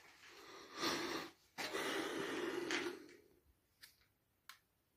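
A person breathing heavily close to the microphone: two long, noisy breaths, followed by two short clicks near the end.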